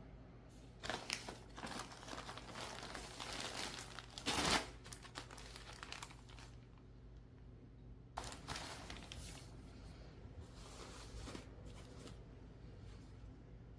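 Packaging crinkling as it is handled, in bursts through the first several seconds, with the loudest crackle about four and a half seconds in, then more crinkling around eight to nine seconds in.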